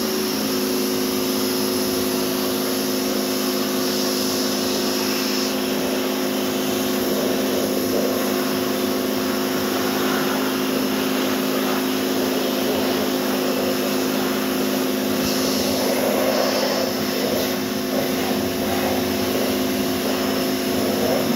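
Pressure washer running steadily, its motor giving a constant hum under the hiss of the water jet spraying the van's bodywork.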